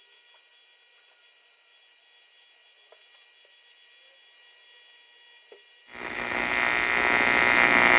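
Welding arc on aluminium: a faint, steady electric buzz. About six seconds in it swells into a much louder, harsh buzzing hiss that holds to the end.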